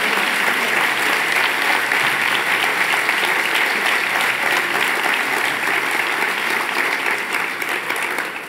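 A large seated audience applauding steadily, a dense patter of many hands clapping that begins to die away near the end.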